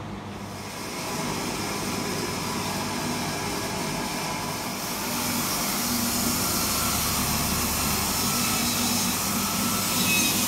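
A workshop machine running steadily with a loud rushing noise. The noise grows louder about a second in and again about five seconds in.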